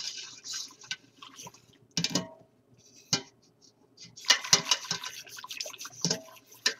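A whisk stirring a thick flour-and-broth soup base in a stainless steel pot: quick clicking and scraping against the pot's sides with the liquid sloshing. There is a short lull around the middle, then faster whisking.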